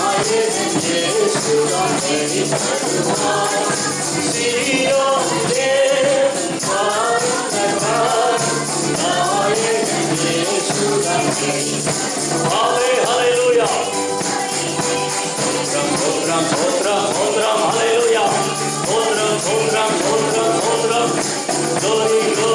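Tamil Christian worship song: a man singing through a microphone over music, with a tambourine shaking along.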